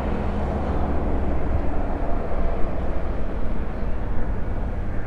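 Triumph Daytona 675R's three-cylinder engine idling steadily through an Arrow exhaust: an even, low rumble.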